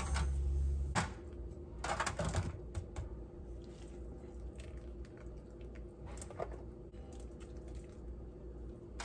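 Kitchen work sounds: a utensil scraping and tapping against dishes in short, scattered strokes, with small clicks, over a low steady hum.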